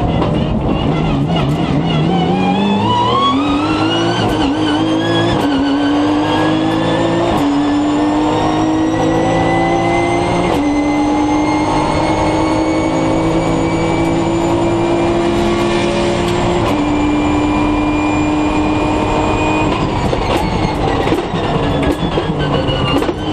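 Nissan GT-R Nismo GT3's twin-turbo V6 heard from inside the cockpit, accelerating hard through the gears: the engine note climbs and drops sharply at each of about five upshifts, then rises slowly in a long pull in a high gear. Near the end the note falls away as the car slows.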